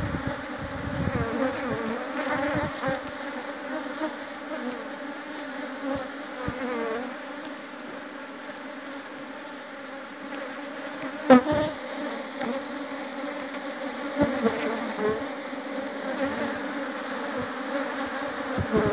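Honeybee colony buzzing steadily over an open hive full of bees. A few sharp knocks and scrapes of a metal hive tool on the wooden frames cut through it, the loudest about eleven seconds in.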